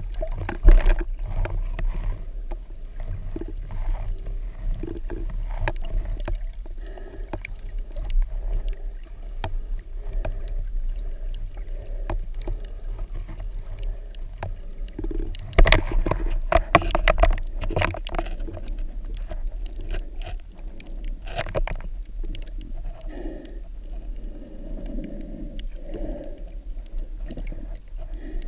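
Underwater sound heard through a GoPro Hero4's waterproof housing: a steady low rumble with scattered clicks and knocks. A burst of louder clicks comes about halfway through, and another a few seconds later.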